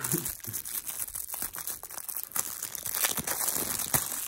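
Thin clear plastic bag crinkling and crackling as fingers handle it, a run of small irregular crackles.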